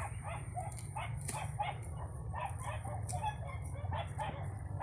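Short animal calls repeating about three or four times a second, over a steady low rumble.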